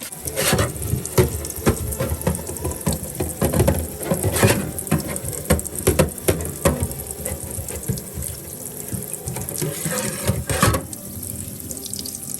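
Tap water running into a sink while a sanded brass piece is washed with cleaner and dish soap, with frequent knocks and clatters from handling the metal under the stream.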